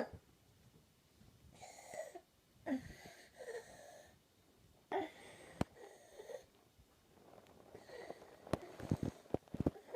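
A young child's croupy breathing with stridor: several noisy breaths, each with a pitched, whistling tone, coming every second or two, with a few sharp clicks near the end.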